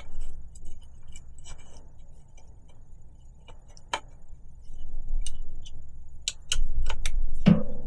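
Scattered metallic clicks and clinks of wrenches working a threaded rivnut setting tool, turning it to compress a rivnut into a bicycle frame. Heavier low rubbing and bumping near the end.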